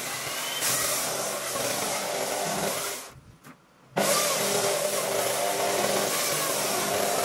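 A power tool working wood, running steadily. About three seconds in it cuts out for about a second, then comes back suddenly.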